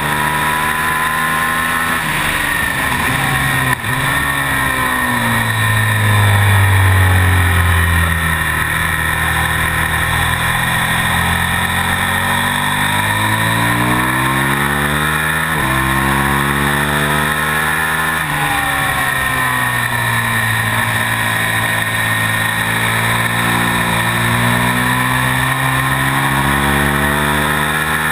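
A KTM Super Duke's V-twin engine at racing speed, heard from the bike itself: the revs drop sharply about four seconds in, then climb again with gear changes breaking the pitch several times, over a steady rush of wind.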